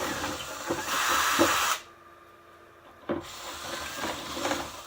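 Small electric drill with a fine bit running in two bursts, clearing hardened expanding glue out of threaded bolt holes in a wooden speaker box. It stops about two seconds in and starts again a second later.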